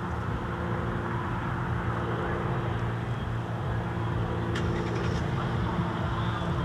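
Steady drone of a high-wing single-engine light aircraft's piston engine and propeller, an even hum of several held low tones.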